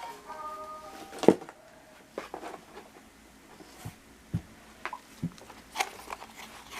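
Hands handling small toys and their packaging: scattered light clicks, taps and rustles, with a sharp click just over a second in. A short melody trails off in the first second or so.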